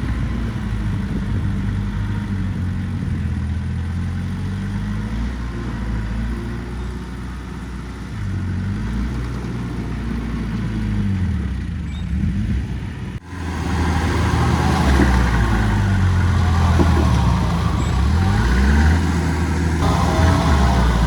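Heavy-equipment diesel engines working under load, their pitch rising and falling as they rev. The sound breaks off abruptly about 13 seconds in and comes back louder and busier.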